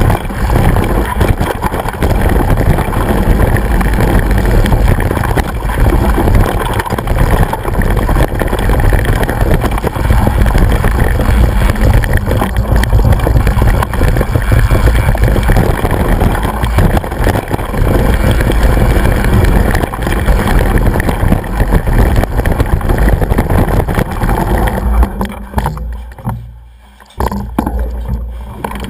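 Wind buffeting the microphone of a bike-mounted action camera and the bike rattling and jolting over a rough hillside track during a mountain-bike descent. The noise falls away briefly near the end, then returns.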